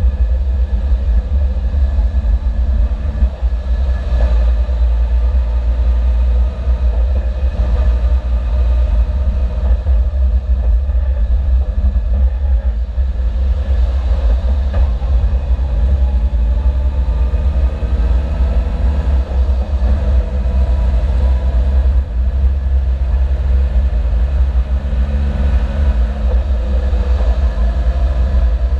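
Suzuki Jimny driving, its engine note stepping down and back up several times with gear changes over a heavy, steady low rumble of road and wind.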